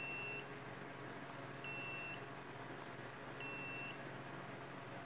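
Magpie VH-80 laser distance measurer beeping: three identical short, high-pitched beeps, evenly spaced about 1.7 seconds apart.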